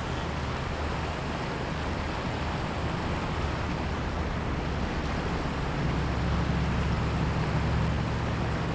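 Steady rush of a shallow river flowing over a cobble bed, with a low rumble underneath that grows louder about six seconds in.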